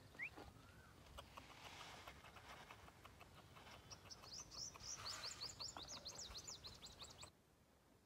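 Small birds chirping: a quick run of short, high, rising chirps from about halfway in, over faint light clicks. The sound cuts off suddenly near the end.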